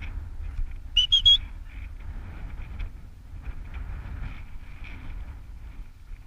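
Three quick, high whistled pips about a second in, the loudest sound here, over a steady low rumble of wind on the microphone.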